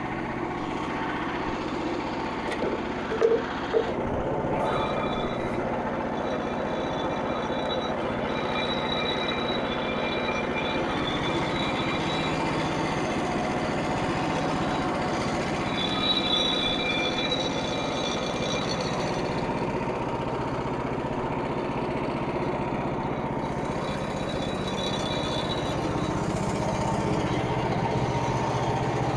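Portable bandsaw sawmill's engine running steadily, with a high whine that comes and goes and two sharp knocks about three seconds in.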